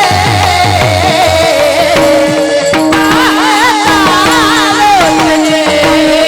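Devotional singing: a solo voice holding long notes with wavering, sliding ornaments over a steady drone, with drum strokes in the first second or so.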